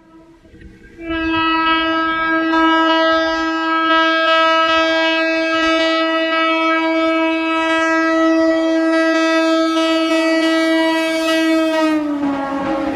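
Electric locomotive's horn sounding one long, steady blast as the express approaches at speed, starting about a second in. Near the end the pitch drops as the locomotive passes, and the rush of the train running past begins.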